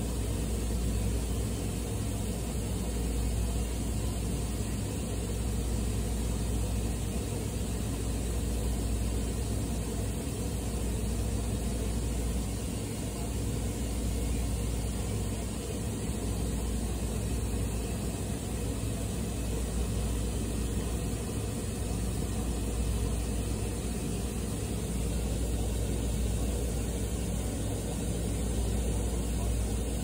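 Steady low mechanical rumble and hum, unchanging throughout, with no birdsong standing out.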